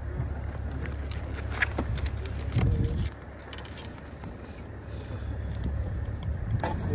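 A vehicle engine running as a low rumble, with scattered light clicks and rattles. It drops off a little after three seconds in and builds again near the end.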